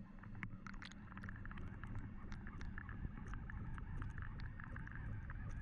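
Underwater audio from a GoPro in its housing, hung on the fishing line: a steady low, muffled rumble of water with many small scattered clicks and crackles.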